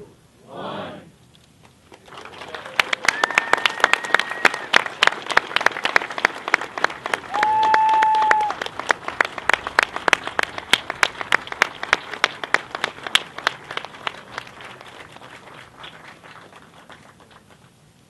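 Crowd applauding: clapping starts about two seconds in, builds, then slowly dies away near the end. Two steady whistle-like tones sound over it, the louder one lasting about a second, about seven seconds in.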